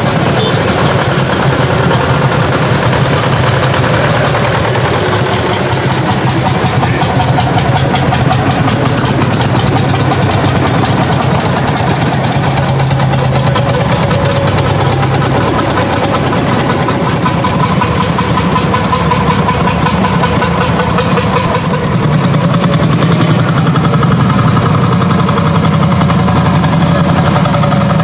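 Engines of several vintage tractors running at low speed as they pass one after another, a loud steady low drone with a fast beat, swelling slightly near the end as the next tractor comes close.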